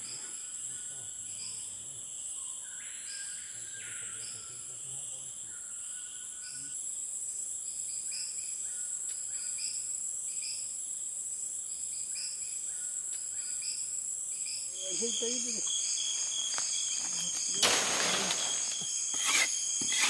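Rainforest insect chorus, a steady high-pitched shrill, with short repeated calls sounding over it. Near the end a voice is heard, then several sharp chopping strikes of a machete on wood.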